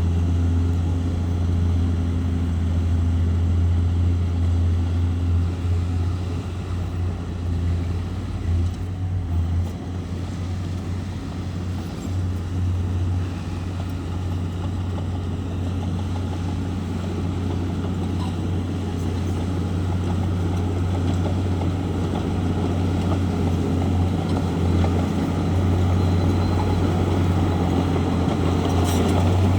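Bulldozer's diesel engine running steadily with a deep drone, easing a little for a few seconds around the middle before coming back up.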